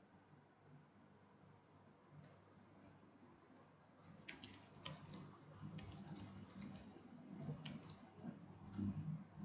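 Typing on a computer keyboard: quiet key clicks, a few scattered at first, then a quick run of keystrokes from about four seconds in until near the end.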